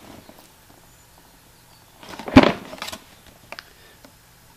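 Cardboard product box being turned over in the hands: a short rubbing rustle with a sharp knock in its middle, about halfway through, then a couple of small clicks.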